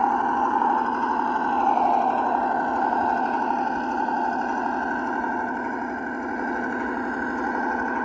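Simulated ZIL-131 V8 engine sound from a 1:12 RC model truck's sound module, running steadily at low revs as the truck crawls forward. It comes through a small speaker, so it sounds thin with no deep bass.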